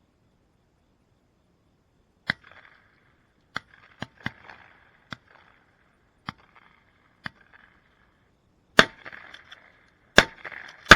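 Shotgun shots across a dove field: a scattered string of lighter, more distant shots, then two loud close shots near the end and a third as it ends.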